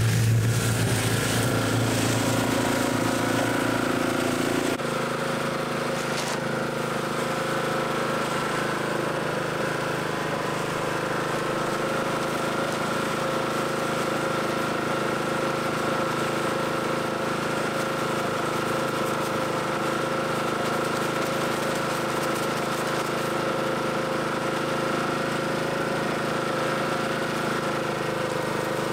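Portable cement mixer running steadily, its drum turning with a rattly mechanical drone while dry cement is tipped in.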